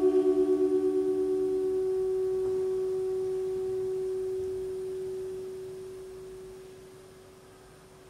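A soprano saxophone, layered with its live-electronics playback, holds a long, soft, pure-sounding note. A second, lower tone beats against it and stops about two seconds in, then the remaining note fades slowly almost to nothing.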